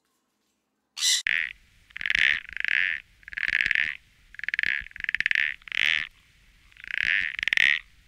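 A toad calling: a string of short, rapidly pulsed trills, each under a second long, repeated with brief gaps. The calls begin about a second in, after a moment of silence.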